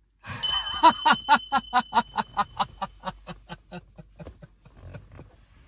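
A person laughing: a long run of 'ha-ha-ha' pulses, about four to five a second, loudest near the start and fading away over a few seconds.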